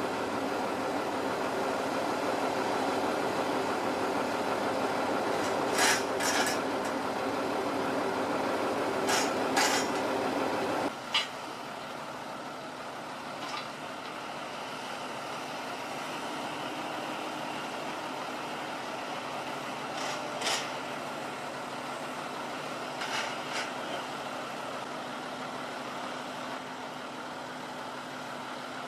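Hyundai 140LCD-7 tracked excavator's diesel engine running steadily, with a few sharp clanks from the machine as it handles hay bales. The sound turns quieter about eleven seconds in.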